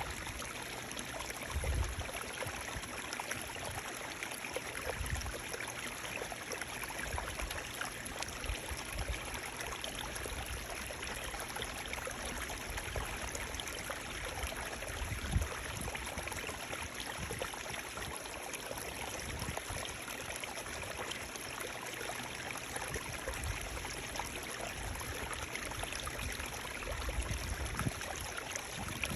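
Running water flowing steadily with a continuous rushing sound, broken by a few brief low bumps.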